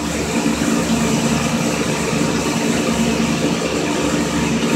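A machine running with a steady low hum at one constant pitch.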